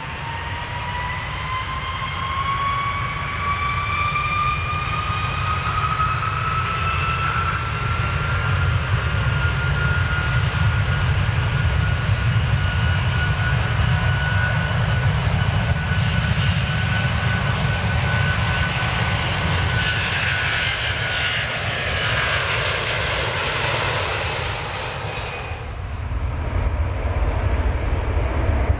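Airplane engines during take-off: a low rumble with a whine that rises in pitch over the first several seconds and then holds steady. A hiss builds to its loudest near the end and then cuts off suddenly, leaving the low rumble.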